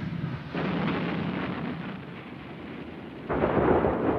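Heavy shell explosions: one blast about half a second in and a louder one a little after three seconds in. Each starts suddenly and dies away in a long rumble.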